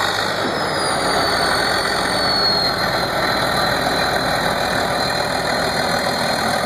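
Heavy diesel engine of vintage earthmoving equipment running steadily, with a thin high whine that slides slightly down in pitch in the first few seconds.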